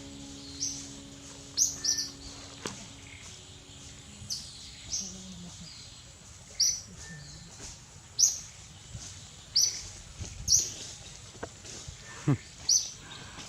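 A bird chirping outdoors: short, high chirps repeated about once a second, with one brief low falling sound near the end.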